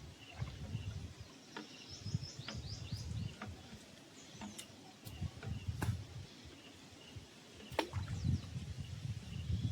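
Birds chirping in short, falling calls over gusty wind buffeting the microphone, with a few sharp clicks.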